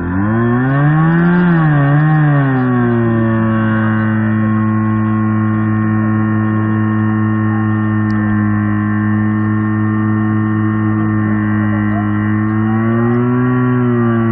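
Portable fire pump engine running hard. It revs up and down in the first couple of seconds, then holds a steady high speed while pumping water into the hose lines, with its pitch rising a little near the end.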